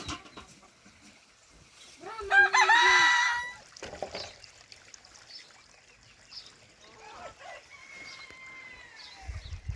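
Rooster crowing: one loud, drawn-out crow about two seconds in, then a fainter crow, probably from another bird farther off, whose pitch drops at the end, starting around seven seconds in.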